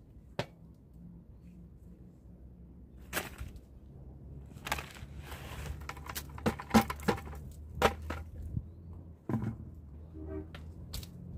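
Soil or compost poured from a plastic bucket into a raised bed, with sharp knocks from the bucket and gloved hands working the soil. The loudest knocks come a little past the middle. A faint pitched call is heard near the end.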